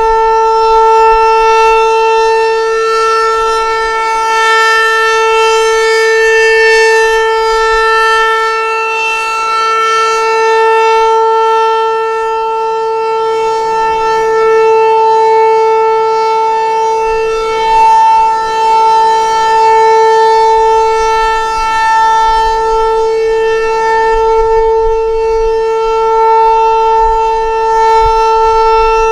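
Federal Signal 508 outdoor warning siren sounding the Alert signal: one loud steady tone held without change in pitch, swelling and fading gently in loudness as the rotating head turns.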